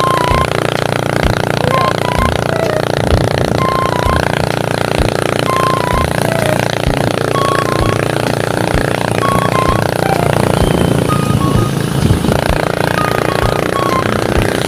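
Motorcycle running at cruising speed along a road, with wind rushing and buffeting on the microphone. A thin melody of short high notes comes and goes over it.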